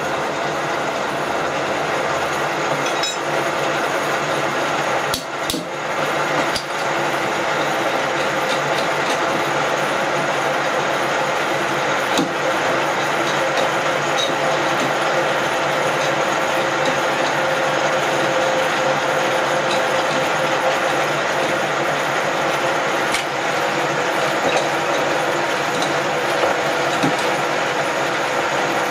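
Cincinnati No. 2 milling machine running, a steady mechanical whir of motor and gearing, with a few clicks and knocks about five to seven seconds in.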